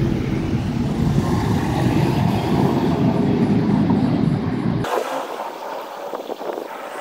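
Low, steady rumble of road vehicle noise that cuts off abruptly about five seconds in, giving way to quieter background.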